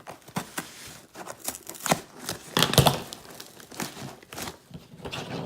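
A cardboard shipping box being handled and opened by hand: packing tape and packaging crinkling and tearing in irregular rustles and cracks, loudest a little before three seconds in.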